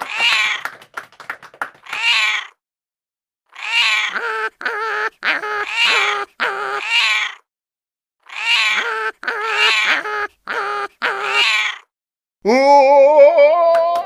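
Meow-like calls in quick runs of about six, broken by sudden dead silences, the same run repeated like a looped clip; near the end a longer call rises in pitch.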